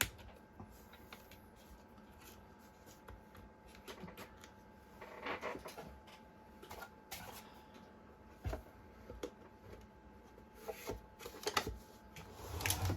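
Scattered small clicks, taps and rustles of hands handling and fitting parts of an e-bike battery pack, with a denser run of knocks and rattles near the end.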